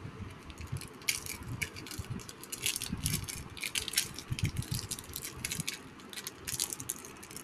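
Foil wrapper of a Pokémon trading card booster pack crinkling in the fingers as it is handled, in irregular small crackles, with low thumps from handling.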